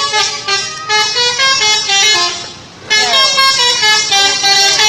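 Telolet horn, the multi-tone musical air horn fitted to Indonesian buses, playing a quick melody of stepped notes. It breaks off briefly about two and a half seconds in, then starts another run of notes.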